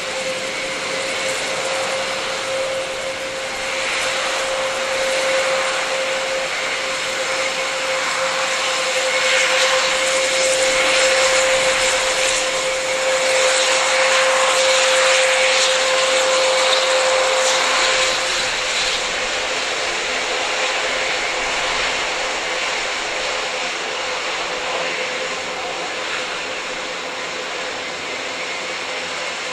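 Airbus A400M's four Europrop TP400-D6 turboprop engines running as the aircraft taxis past: a steady propeller tone over a broad engine hiss. It grows louder to a peak about halfway through, then eases off.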